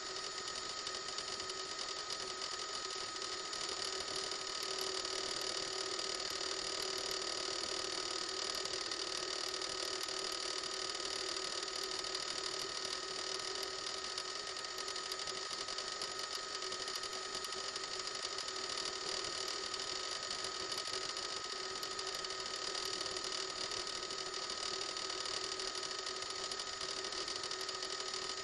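Helicopter cabin noise picked up by the onboard reporter's microphone: a steady mechanical drone with a constant high whine and hiss, unchanging throughout.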